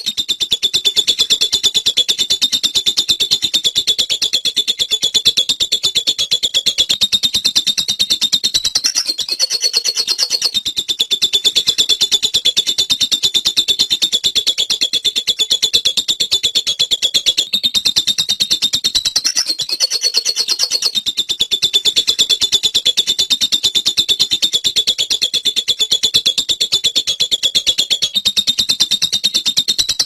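Caged lovebird giving its long chattering trill ('ngekek'): a shrill, very fast, machine-like run of notes held for several seconds at a time, stopping briefly three or four times before starting again.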